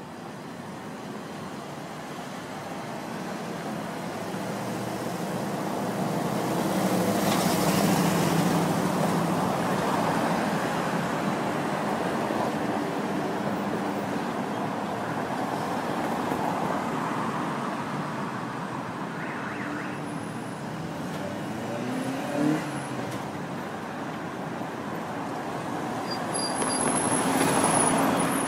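Street traffic: cars passing by, the rumble swelling as vehicles go past, loudest about a quarter of the way in and again near the end, with a brief rising note about three-quarters of the way through.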